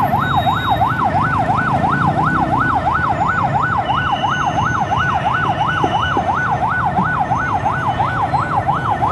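Electronic siren wailing in a fast warble, its pitch sweeping up and down about three times a second over a low background rumble. It cuts off at the very end.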